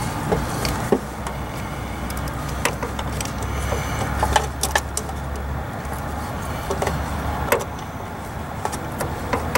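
Scattered light clicks and taps of a screwdriver and plastic trim as screws are fitted into a tail-light assembly from inside the vehicle, over a steady low vehicle rumble.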